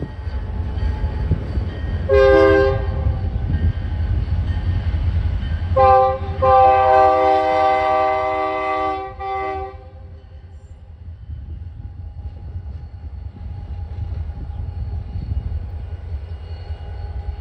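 A CN diesel locomotive running light sounds its Nathan K3LA five-chime horn at a grade crossing: a short blast about two seconds in, then a longer blast broken into pieces from about six to ten seconds in. Under it runs the low rumble of the diesel engine, which fades after the horn stops as the locomotive moves away.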